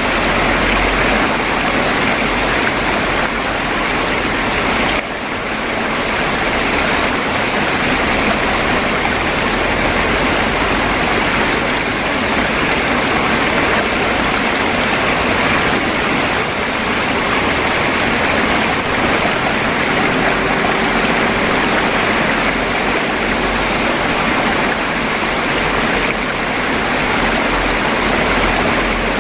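Water of a river stream flowing and trickling, a steady, even rush of babbling water.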